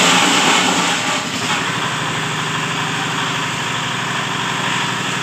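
Steady machine hum with a layer of hiss.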